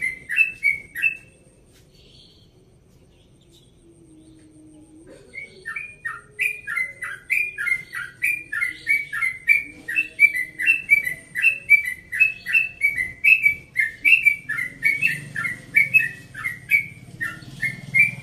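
Yellow-vented bulbul (trucukan) singing its fast rolling 'ropel' song, a long run of repeated chirped notes at about two or three a second. It breaks off about a second in, pauses for roughly four seconds, then starts again and keeps going.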